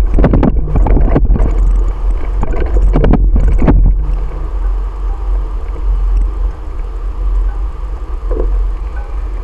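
Ride noise picked up by a bicycle-mounted camera: a steady low wind-and-road rumble on the microphone, with a flurry of knocks and jolts over rough, cracked pavement for the first four seconds, then a smoother, quieter rumble.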